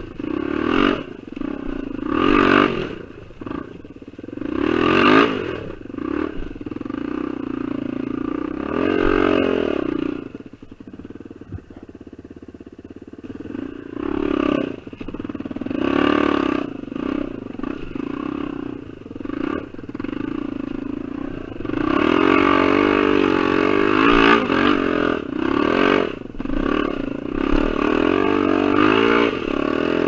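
Honda XR250R dirt bike's single-cylinder four-stroke engine revving up and down in repeated throttle bursts while riding off-road. It drops to a low, quieter run for a few seconds about a third of the way through, then pulls hard almost continuously over the last several seconds.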